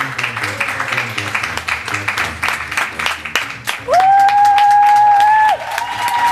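Audience applauding, a dense patter of many hands clapping. About four seconds in, a loud steady high tone slides up and then holds for about a second and a half over the clapping before it stops.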